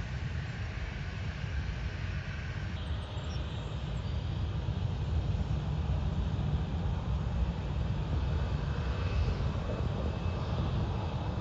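Jet airliner engines running at low taxi power: a steady rumble with a higher whine. The sound changes suddenly a few seconds in, from a regional jet on the runway to a Southwest Boeing 737 taxiing, and a faint high steady tone comes in near the end.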